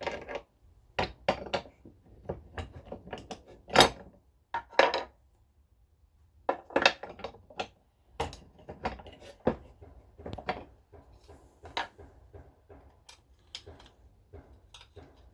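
Irregular clicks, taps and clatter of hard metal and plastic parts being handled while a guard is fitted onto a new Makita angle grinder, with one louder knock about four seconds in.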